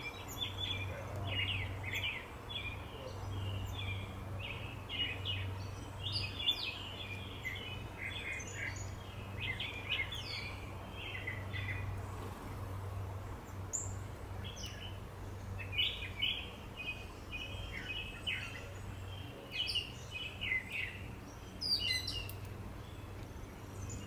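Small songbirds chirping in quick twittering clusters, with a few thin rising notes, over a steady low hum.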